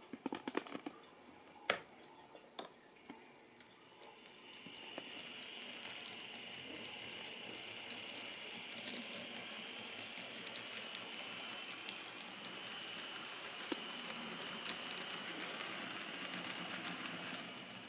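Kato N-scale SD70-series model locomotives running together on the track: a steady high motor whine with wheel hiss that rises in about four seconds in and holds, after a sharp click near two seconds in.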